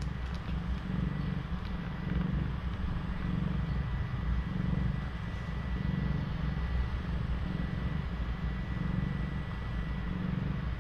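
Cat purring: a low, steady rumble that swells and eases with each breath.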